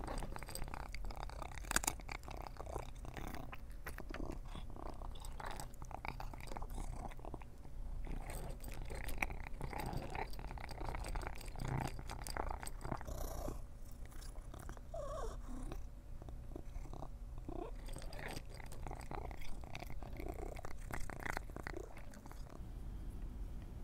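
A long-haired cat eating dry kibble from a bowl: irregular, close-up crunching and chewing of the hard pellets.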